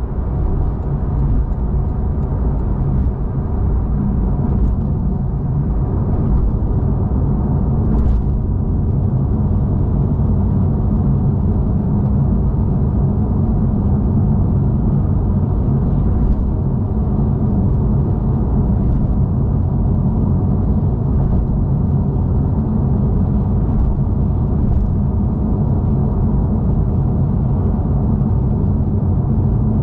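Porsche 911 Carrera S flat-six with the factory Porsche Sport Exhaust cruising at a steady speed: an even engine and exhaust drone mixed with road noise, with no revving. The sound is somewhat muffled.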